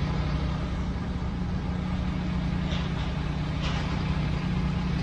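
Steady low engine and road hum of a car driving, with faint brief hisses about two and a half and three and a half seconds in.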